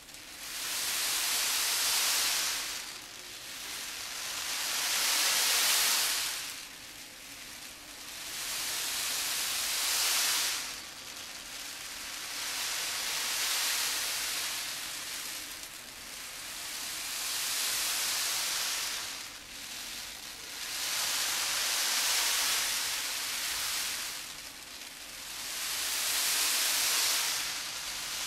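Azuki beans rolled back and forth in a wave basket, a traditional Japanese wave sound effect: a hissing rush that swells and fades about every four seconds, like waves washing up a beach and drawing back.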